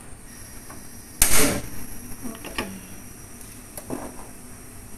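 Gas stove burner being lit: a short, loud burst about a second in as the burner ignites, followed by a few faint clicks.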